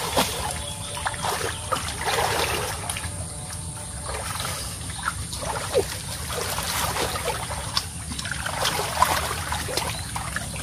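Shallow stream water sloshing and trickling as several people wade and grope with their hands in the muddy streambed for freshwater mussels, with small irregular splashes throughout.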